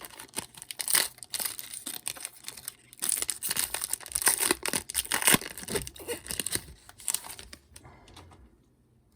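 The foil wrapper of a trading-card hobby pack being torn open and crinkled: dense crackling and tearing that dies away about eight seconds in.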